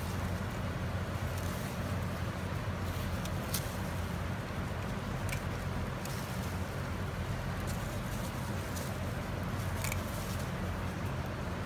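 Steady low machine hum, with a few short, sharp clicks of pruning shears snipping cucumbers from the vine.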